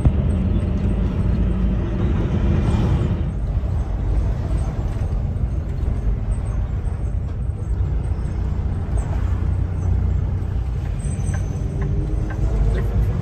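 Cab noise of a Kenworth T680 semi truck under way: the diesel engine and tyres make a steady low rumble.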